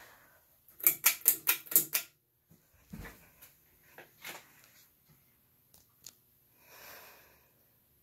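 Litex Vortex hugger ceiling fan's pull chain and pull-chain switch clicking: a quick run of about six sharp clicks about a second in, then a few scattered lighter clicks.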